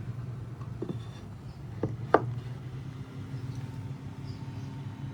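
Honeybee colony humming steadily inside the hive, with a second higher hum joining about two seconds in. Three short clicks or knocks break in, the loudest just after two seconds.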